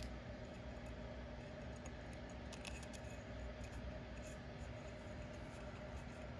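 Faint handling sounds of fishing line and fingers against a metal spinning-reel spool while a knot is tied: light rubbing and small clicks, a few together about two and a half seconds in, over a steady low hum.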